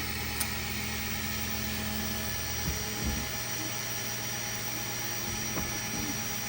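3D printer running with a steady machine hum while it homes. A few light clicks are heard, and the deeper part of the hum stops about three seconds in.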